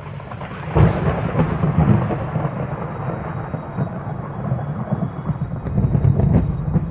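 Deep, crackling thunder rumble that swells sharply about a second in and again near the end.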